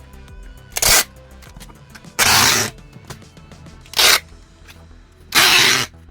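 Packing tape being pulled off the roll in four loud rasping rips, alternately short and longer, over background music.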